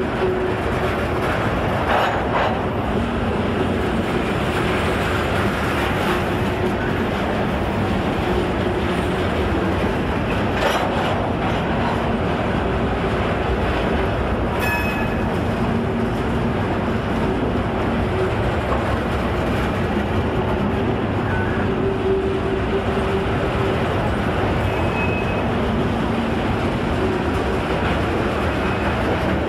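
A train rolling past with a steady rumble and clatter of wheels on rail and a few brief high-pitched squeals.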